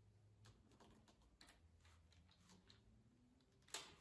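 Near silence: room tone with faint scattered clicks and one sharper click near the end.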